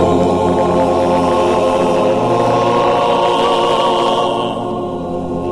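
A choir with a backing band holding one long chord, the closing chord of the song; the higher notes drop away near the end.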